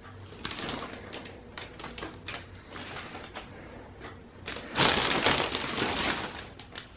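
Gift bag and shiny plastic wrapping rustling and crinkling as hands rummage through them, with scattered small clicks and a louder stretch of rustling about five seconds in.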